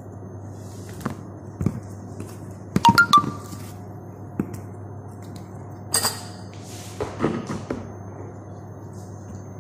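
Kitchen dishes and utensils being handled, clinking and knocking over a steady low hum. Three quick ringing clinks come about three seconds in, another bright clink about six seconds in, and a cluster of lighter knocks shortly after.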